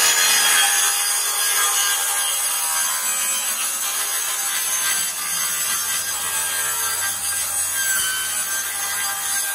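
Corded circular saw cutting through the wall of a plastic five-gallon bucket, a steady, loud, high-pitched cutting noise.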